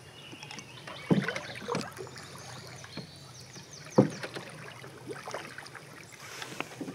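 Canoe paddling: paddles dipping and pulling through the water in irregular strokes, about one every second or two, with the sharpest stroke about four seconds in.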